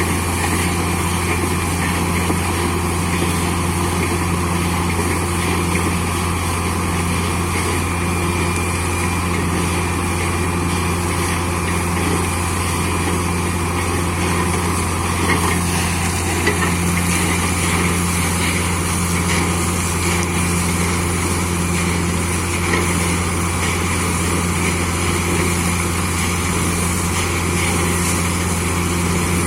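Borewell drilling rig and its air compressor running steadily at drilling, a loud constant machine drone with a strong low hum.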